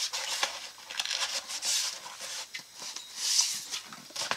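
Tools and their packaging handled by hand: rustling and rubbing of wrapping, with many small clicks and taps, and two louder swishes about two and three and a half seconds in.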